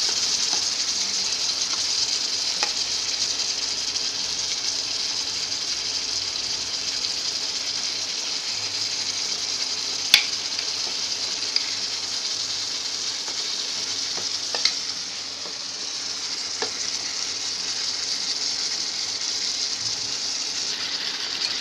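Yogurt-marinated chicken sizzling and frying as it goes into hot oil with fried onion-and-spice masala, a steady frying hiss. A few sharp clicks come in the second half, the loudest about halfway through.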